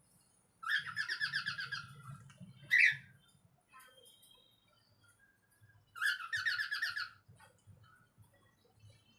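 Parrots calling: two bursts of rapid, chattering notes, each lasting about a second, the first starting about half a second in and the second about six seconds in, with one loud short call between them.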